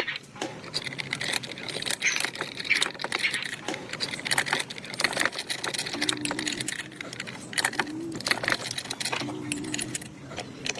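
Metal parts and hand tools clinking and tapping in irregular strokes while an old motorcycle is worked on. A few short, low, coo-like tones come in the second half.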